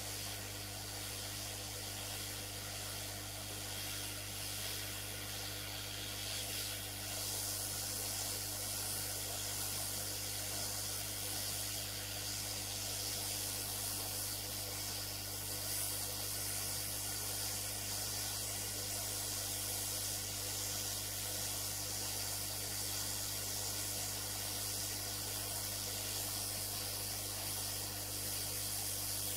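Metcal hot air station blowing a steady hiss of hot air onto a RAM chip to melt its solder, over a steady low hum.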